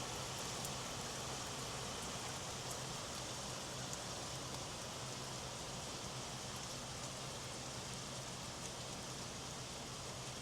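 Steady rain falling, with faint drops ticking here and there.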